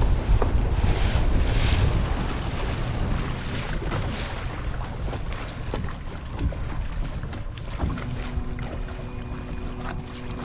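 Wind buffeting the microphone and water washing against the hull of a small boat moving slowly on open water, with a low rumble that fades somewhat. A faint steady hum comes in near the end.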